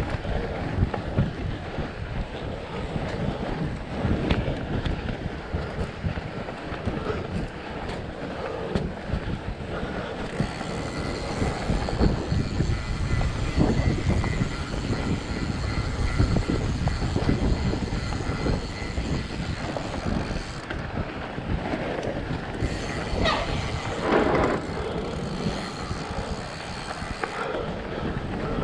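Continuous ride noise from a fat bike rolling over packed snow: an uneven tyre rumble with a steady rattle and knocking from the bike. It is louder in the middle stretch, with a few sharper knocks towards the end.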